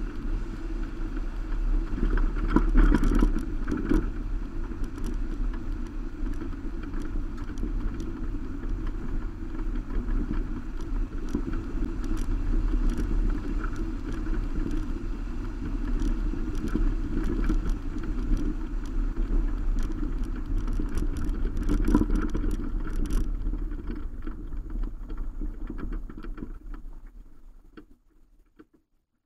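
Road noise from a Subaru Baja driving on a gravel road, picked up by a camera on the roof rack: a steady rumble of tyres on gravel and wind on the microphone, with scattered clicks of loose stones. It dies away near the end as the car slows.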